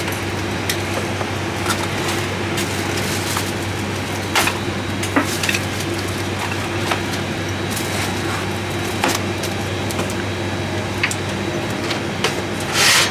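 Steady hum of a Boeing 737 MAX galley, with scattered clicks and crinkles of foil-wrapped meal casseroles and metal trays being handled and loaded into a galley oven. A louder rustling scrape comes near the end.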